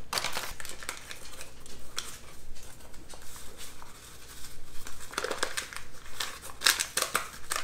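Paper pouch of instant pudding mix crinkling as it is shaken and squeezed to empty the powder into a mixing bowl, a run of small crackles that grows busier about five seconds in and again near the end.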